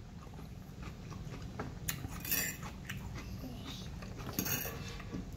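Metal fork scraping and clinking against a plate of rice a few times, about two seconds in and again near four and a half seconds, with chewing in between.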